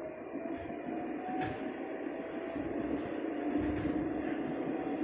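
Moscow metro train pulling away from a station, heard from inside the car: the traction motors' whine rises slowly in pitch as the train speeds up, over a growing rumble of wheels on rail. A single short click comes about a second and a half in.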